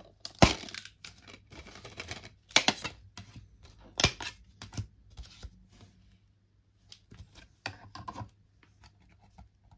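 Plastic DVD case being handled: a sharp snap as the case is opened, then clicks and rattles as a disc is pressed off the centre hub, with more clicks near the end as the case is shut and set down.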